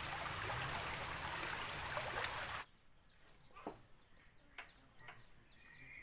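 A steady rushing noise cuts off abruptly about two and a half seconds in. It gives way to quieter outdoor ambience in which a bird repeats short rising chirps, with a few light clicks.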